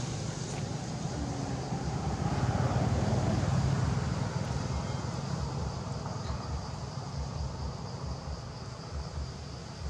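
Low outdoor background rumble that swells about two to four seconds in and then slowly eases off, with a faint steady high hiss over it.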